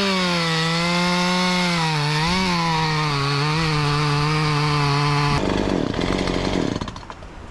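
Stihl MS 171 two-stroke chainsaw at full throttle cutting through a sycamore trunk, its engine note dipping briefly twice as the chain bites. About five and a half seconds in the engine stops abruptly, followed by a second or so of rustling and knocking.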